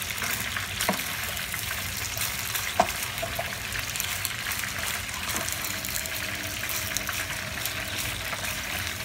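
Macaroni and mortadella in mayonnaise sauce sizzling in a pan while being stirred with tongs. There is a steady hiss and two light knocks of the tongs against the pan, the sharper one about three seconds in.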